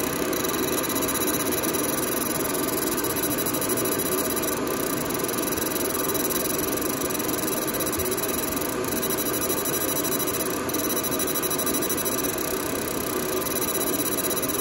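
A fan running steadily, a fairly loud even rush, while a fiber laser engraves a stainless tumbler turning on a rotary. Faint high steady tones sit above the rush.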